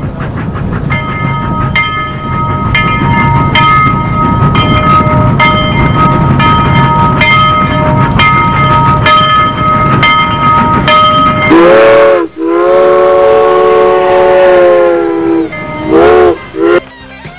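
Steam train sound: a steady rhythmic chugging rumble with regular clicks, then the steam whistle sounds a long multi-tone blast about twelve seconds in and a short one near the end.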